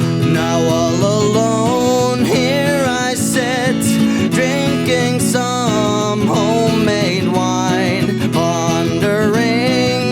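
Folk-style music: acoustic guitar chords with a melodic lead line above them that wavers in pitch from note to note.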